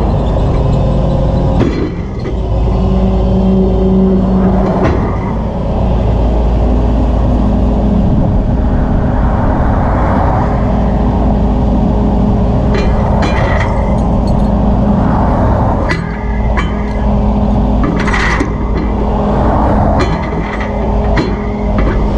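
Flatbed tow truck's engine running steadily at idle, with the rumble of highway traffic passing close by. Several short clicks and knocks in the second half.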